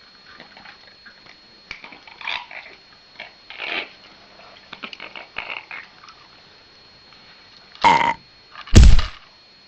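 A pet parrot making scattered soft calls and small noises, then two loud harsh bursts near the end, the second the louder.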